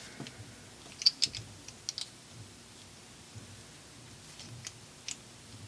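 Light clicks and taps of small metal tool parts being handled and worked against each other, a cluster of clicks about one to two seconds in and a single click near the end.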